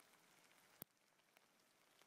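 Faint patter of small hailstones falling on twigs and leaf litter, an even hiss dotted with light ticks. One sharper click a little under a second in stands out above the rest.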